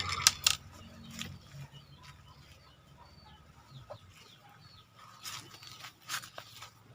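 Chickens clucking, with two sharp cracks just after the start and a couple of fainter sharp clicks about five to six seconds in.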